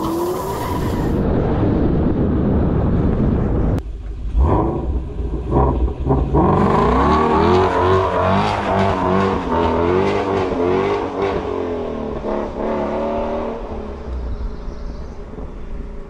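Ford Mustang Shelby GT350's 5.2-litre flat-plane-crank Voodoo V8 exhaust on a drive. The revs rise and fall over and over, with short breaks in the sound between about four and six seconds in, like quick gear changes.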